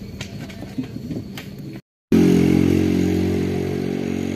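Rumble of a moving vehicle with scattered clicks, cut off about two seconds in. After a brief gap, a loud, steady engine hum holding one pitch.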